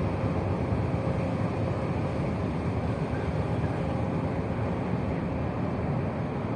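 The Blue Horizon ferry's engines running as the ship moves off: a steady low rumble with a faint steady hum over it.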